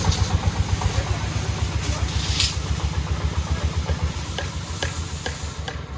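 Three-wheeled công nông farm truck's single-cylinder diesel engine chugging in a rapid, even beat as it pulls away, fading after about four seconds. Over it runs a hissing scrape with a few sharp clinks, from the long steel rebar load whose ends drag on the concrete.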